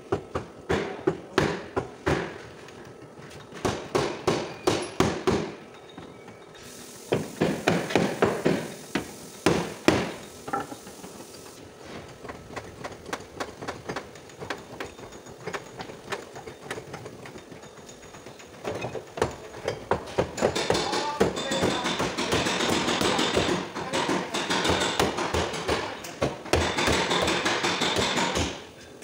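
Hammer blows on the crumpled sheet-metal rear panel of a car body being straightened, coming in bursts of rapid strikes with pauses between them, densest near the end.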